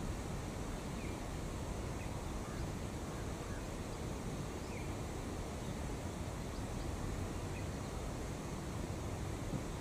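Steady outdoor background noise with a low rumble, and faint short bird chirps every second or so.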